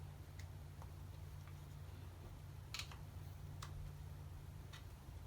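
Short sharp plastic clicks, about six spread over the few seconds with the loudest near the middle, as a flathead screwdriver pries up the clips on a Chevy Trailblazer HVAC actuator's plastic housing. A steady low hum runs underneath.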